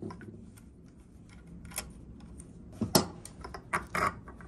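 Light metallic clicks and taps of small engine parts being handled: the loosened magneto nut is spun off by hand and the magneto is worked loose on the engine case. A sharper click comes about three seconds in and a few more shortly after.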